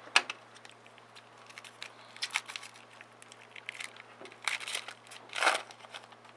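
Foil wrappers of Topps Chrome baseball card packs crinkling and tearing as a pack is ripped open by hand, in a string of short crackly bursts, the loudest near the end.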